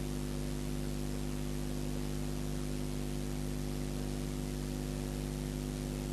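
Steady hiss with a low, unchanging electrical hum and no other events: the background noise of the recording.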